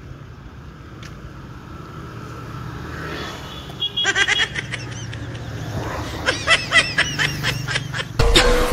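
Street traffic: a lorry's engine running as it approaches, a low rumble that grows louder, with high warbling notes joining about halfway. Loud music cuts in just before the end.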